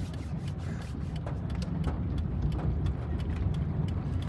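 Car engine running low and steady, heard from inside the cabin, with scattered faint clicks over the rumble.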